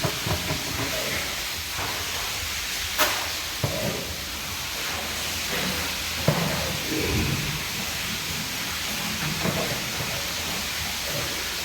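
Steady hiss of a spray jet washing down the pen, with a few sharp knocks, the clearest about three and six seconds in.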